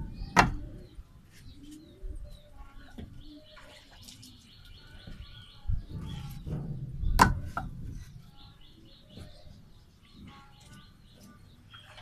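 Loose red clay bricks knocked together as they are set down onto a stack: a sharp clack near the start and another pair about seven seconds in. Birds chirp faintly in between.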